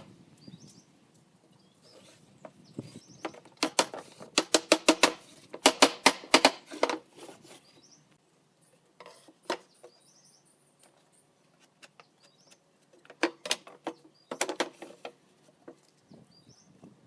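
Three runs of rapid, sharp knocking strikes, several a second, with a few single knocks between them. Faint short chirps are heard in the background.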